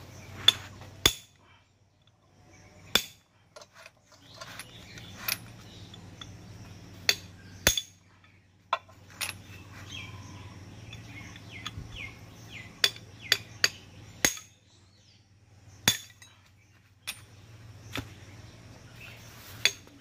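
Steel hammer striking a power tiller gearbox gear and shaft, about fifteen sharp metal-on-metal blows at irregular intervals, knocking the gear loose from its shaft during the gearbox strip-down.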